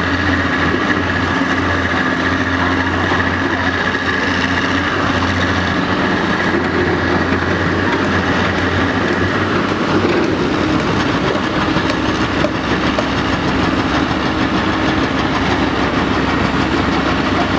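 Caterpillar 385BL ME excavator working hard, its diesel engine running steadily under load with a low hum and a high whine as it digs and swings a full bucket. About ten seconds in, the hum and whine fade and a rougher, more even rumble is left.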